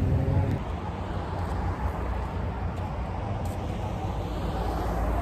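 Steady rumble of road traffic, with no distinct events.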